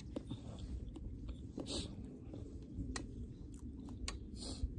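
Scattered light clicks of chopsticks and a fork against a metal camp bowl while eating, over a steady low rumble.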